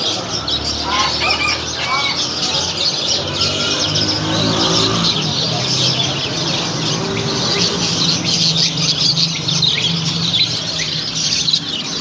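Many caged birds, cockatiels among them, chirping and squawking at once in a dense, unbroken din of short high calls.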